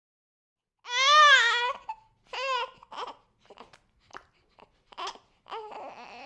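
A six-week-old baby crying. A loud, high wail starts about a second in, followed by a shorter cry, then broken short whimpers and catches of breath, and the crying builds again near the end.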